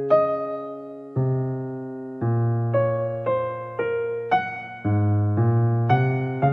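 Slow, gentle electric piano music: sustained chords struck roughly once a second, each fading before the next.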